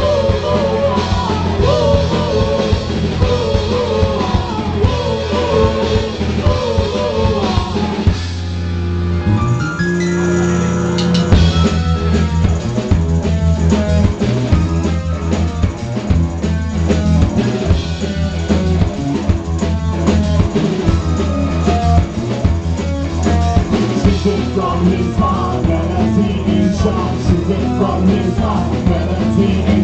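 Live rock band playing: electric guitars, keyboards and a drum kit, with a woman singing lead. About eight seconds in, the singing and drums drop out for a few seconds of held chords, then the drums come back in with a steady beat.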